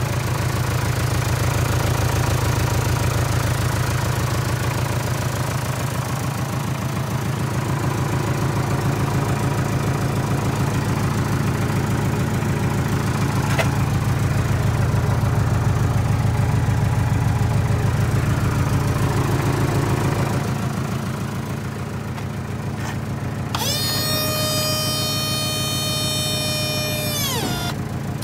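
Mitsubishi Canter truck engine idling with a steady, even low rumble. About 23 seconds in, a loud held tone with many overtones starts suddenly, holds for about four seconds, then sags in pitch and stops.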